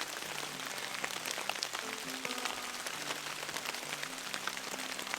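Steady rain pattering, many small drop hits, with soft background music of slow held notes underneath.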